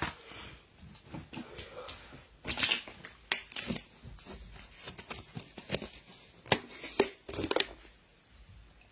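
Handling noise close to a phone microphone: scattered crackles and clicks, with a few louder clusters near the middle, as objects are moved and handled.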